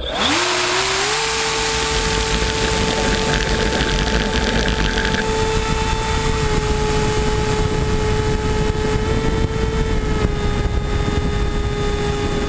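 Electric motor and propeller of a Skywalker 168 FPV model plane spinning up within the first second, then holding a steady whine under a rushing wind noise on the plane-mounted camera.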